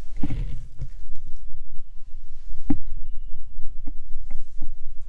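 Irregular light knocks and clicks, roughly one or two a second, over a steady low hum.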